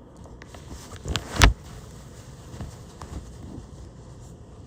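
Two sharp knocks a little over a second in, the second louder, over faint room noise.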